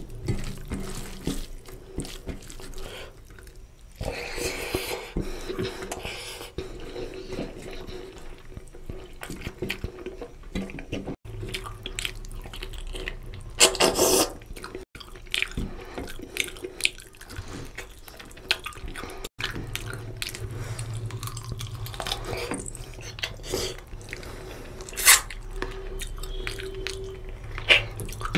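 Close-miked wet eating sounds of rice and oily mutton curry eaten by hand: fingers squishing and mixing curry-soaked rice, with chewing and lip smacking. Many small wet clicks, and a few louder wet bursts about halfway through and near the end.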